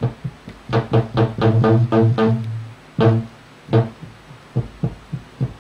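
Homemade RubberBass, a DIY analog electronic bass instrument, played through an amplifier: a run of repeated deep bass notes with sharp attacks, one held a little longer about two seconds in, then after a short gap a few more short notes.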